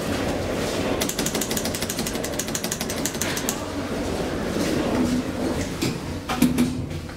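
A rapid mechanical rattle of evenly spaced clicks, about ten a second, lasting two and a half seconds. It is followed by a few separate knocks near the end.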